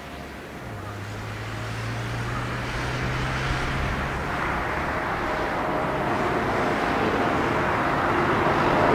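Airbus A340-313X airliner's four CFM56-5C turbofan engines at takeoff thrust, growing steadily louder as the aircraft climbs out toward and over the listener. Near the end a buzzing whine of fan tones rises through the roar.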